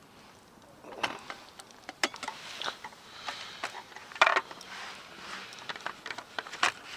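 Irregular clicks, taps and knocks of things being handled, with the loudest cluster about four seconds in.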